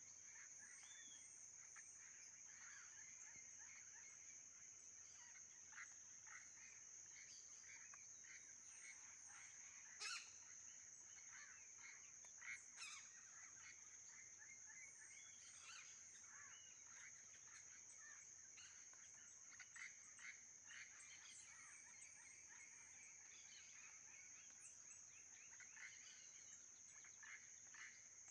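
Faint outdoor ambience of birds calling in short chirps throughout, over a steady high-pitched insect drone. A sharp click about ten seconds in, with two smaller ones around twelve to thirteen seconds.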